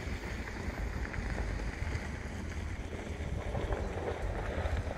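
Wind buffeting the microphone: an uneven low rumble in gusts over a steady hiss.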